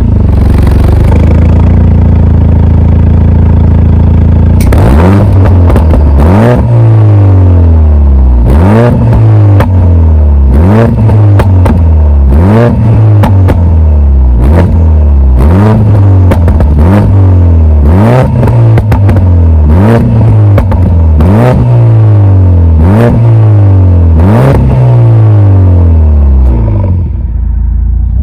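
Mercedes-AMG A45 S's turbocharged 2.0-litre four-cylinder, breathing through a Supersprint exhaust with a 100-cell downpipe, idles steadily for about four seconds. It is then revved in about a dozen blips roughly two seconds apart, each falling back with pops and bangs on the overrun. Near the end it settles back toward idle.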